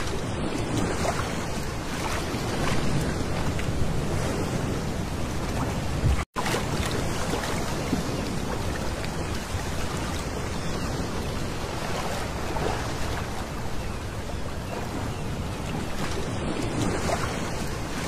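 Small sea waves lapping and washing over a pebble beach, swelling and ebbing every few seconds. The sound cuts out for a split second about six seconds in.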